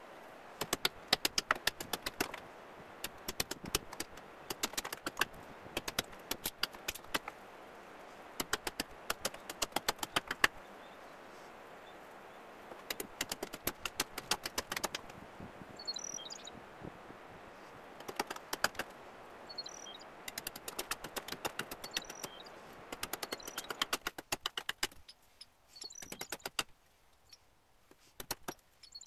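Hatchet chopping a trembling aspen spoon blank against a wooden chopping block, in quick runs of light, sharp strikes broken by short pauses.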